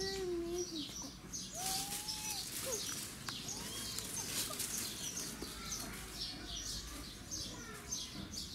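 Small birds chirping: a steady run of short, high, falling chirps, many overlapping.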